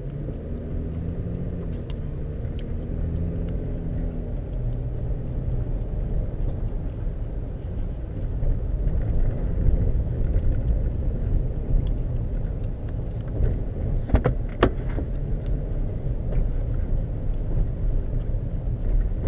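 Vehicle interior sound while driving on a dirt road: steady engine and tyre rumble, with the engine note most distinct in the first few seconds. A few sharp clicks and knocks, from the cab or the road surface, come about three-quarters of the way through.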